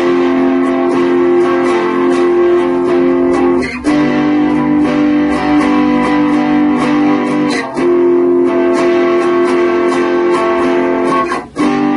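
Guitar strumming the F major and G major chords of the song's second part, alternating F, G, F, each held about four seconds, with the next chord starting near the end.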